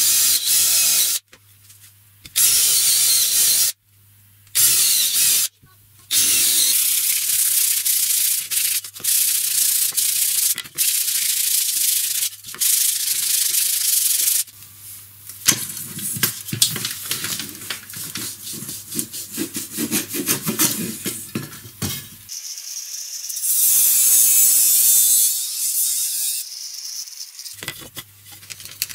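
Wood being rubbed and sanded by hand in repeated strokes. The sound comes in several short stretches that start and stop abruptly.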